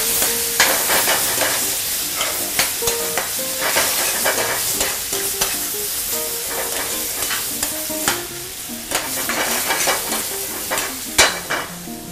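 Chicken pieces sizzling as they fry in a steel frying pan, with a metal spatula scraping and clicking against the pan as they are stirred and turned. The sizzle eases somewhat near the end.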